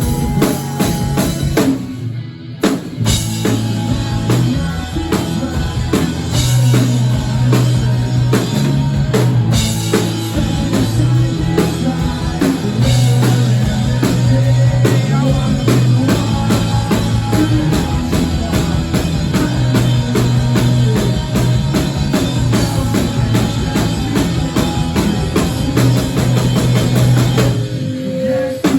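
Live rock band playing a song, loud, with a drum kit keeping a steady beat under electric guitars and bass. The band stops short for a moment about two seconds in and again just before the end.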